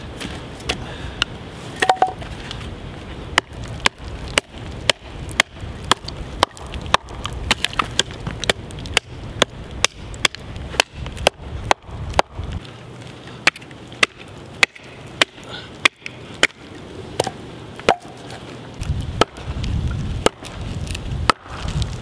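Buck 110 folding knife being batoned through a split log: a stick of wood repeatedly knocks on the back of the blade, driving it down through the grain. The sharp knocks come about two a second.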